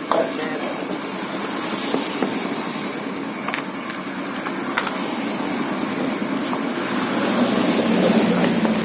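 A car engine running at idle: a steady mechanical hum with a few faint clicks, growing a little louder near the end.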